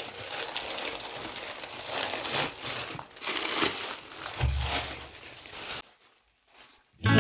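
Packaging of a small backpack crinkling and rustling as it is handled and opened, with a dull low thump about two-thirds of the way through. The rustling stops about six seconds in.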